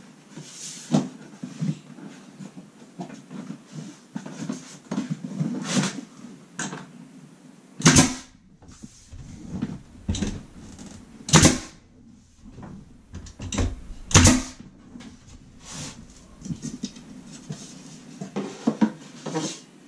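Pneumatic 16-gauge finish nailer firing three nails into wooden wall trim, sharp loud shots about three seconds apart in the middle. Lighter knocks and rustling from handling the trim strips come before and after them.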